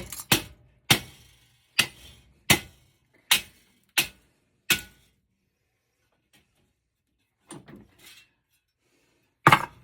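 Hammer striking a copper-and-aluminium heat sink to break it apart: about eight sharp blows over the first five seconds, a pause, then one more loud blow near the end.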